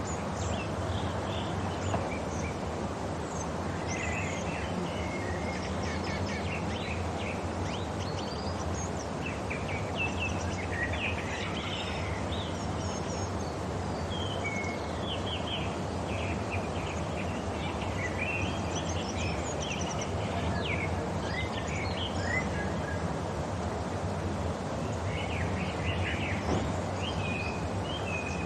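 Several birds chirping and calling in short, quick notes over a steady outdoor background hiss and low rumble.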